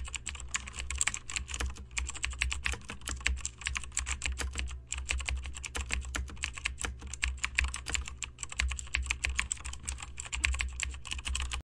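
Rapid, continuous computer-keyboard typing, many keystrokes a second over a steady low hum: a typing sound effect that plays while text is being generated on screen. It cuts off suddenly near the end.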